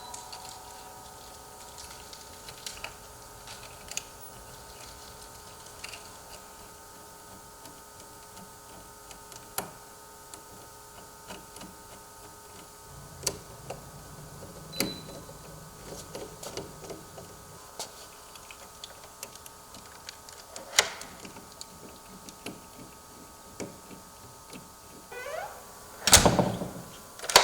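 Scattered clicks and small knocks of tools and door hardware being handled, with a low rumbling stretch about halfway through and a brief rising sweep followed by a louder knock near the end.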